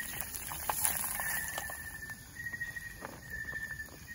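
Onion and garlic sizzling in oil in a pan over a small wood-fired stove, with scattered crackling pops. Over it, an insect's steady high trill repeats about once a second.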